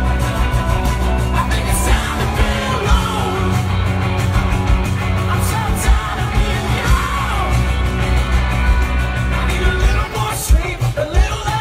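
Rock band playing live through a festival PA, with heavy bass and drums and a voice singing and yelling over the guitars.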